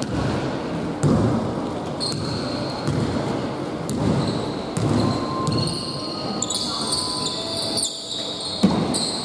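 Basketball being dribbled on a hardwood gym floor, with thuds about once a second that echo in the hall. High, short sneaker squeaks join in from about two seconds in.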